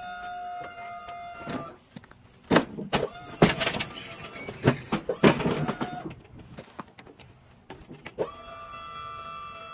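Truck liftgate's electric hydraulic pump motor whining steadily as the platform lowers, cutting off after about a second and a half. Then a run of loud metal clanks and bangs as the folded aluminium platform is swung open by hand, with the motor whining again near the end as the platform rises.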